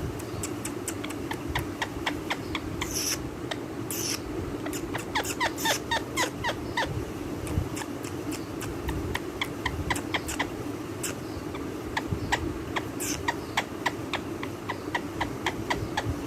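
Indian green parrot (rose-ringed parakeet) making a long run of short, sharp clicks and chirps, coming in quick flurries, over a steady low hum.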